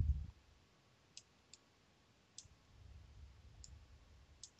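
Computer mouse clicking: about five light, sharp clicks at irregular intervals.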